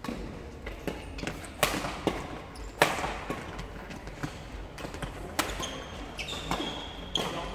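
Badminton rackets striking a shuttlecock in a fast doubles rally: a string of sharp hits at irregular intervals, the loudest about three seconds in, echoing in a large sports hall. Short high squeaks of shoes on the court floor come between hits near the end.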